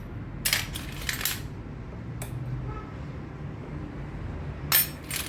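Metal hand tools, wrenches and sockets, clinking and rattling against each other while the right size is sought. A cluster of clinks comes about half a second in, a single clink near two seconds, and a louder cluster near the end.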